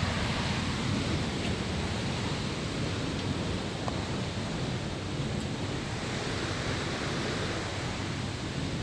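Waterfall: a steady, unbroken rush of falling water, heaviest in a low rumble.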